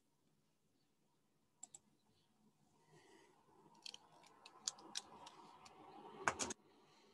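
Faint clicks and rustling handling noise close to a computer microphone as hands adjust the set-up, building to a cluster of sharper, louder clicks near the end.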